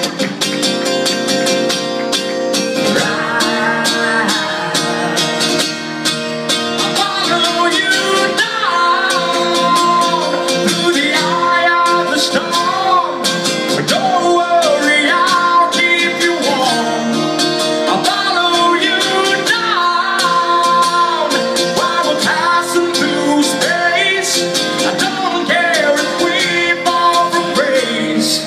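Live acoustic guitar playing chords, with a singing voice carrying a melody that comes in about three seconds in.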